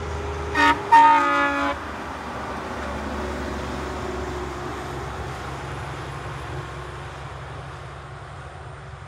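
Truck air horn sounding twice, a short toot then a longer blast, followed by the multi-trailer truck's engine and tyres running past on the highway and slowly fading.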